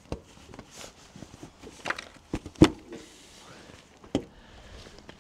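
A few separate knocks and clicks, the loudest about two and a half seconds in and another about four seconds in.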